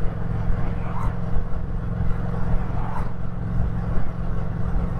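Yamaha MT-07's parallel-twin engine running at a steady pace while the motorcycle is ridden, with no revving up or down.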